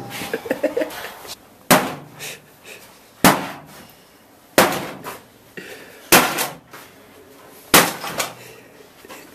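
An old microwave oven being smashed: five heavy blows about a second and a half apart, each a sharp crash of metal and glass with a short rattle after it.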